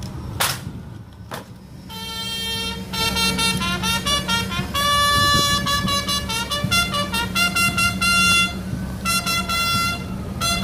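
Two sharp knocks about half a second and a second and a half in, then brass horns playing a tune in short, repeated notes that change pitch, several notes at once.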